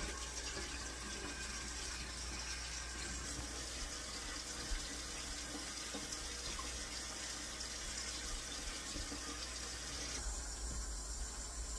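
Kitchen faucet running steadily into a stainless steel sink.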